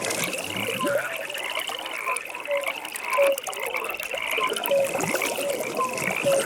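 A chorus of frogs calling at a pond. Rapid pulsed trills repeat about once a second over short, lower croaking notes, with a soft background hiss.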